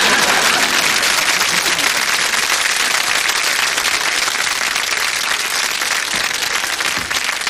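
Studio audience applauding, loudest at the start and easing off slightly.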